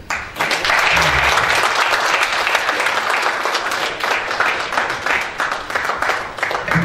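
Audience applauding, thinning to more separate claps towards the end.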